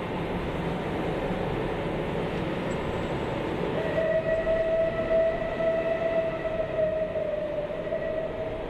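A train running, its wagons rolling on the rails in a steady noise. About four seconds in, a single steady horn note starts and holds for about five seconds.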